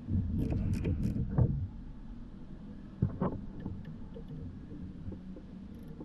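Metal tools clattering and knocking during work on a car's engine bay: a cluster of knocks in the first second and a half, another about three seconds in, over a steady low hum.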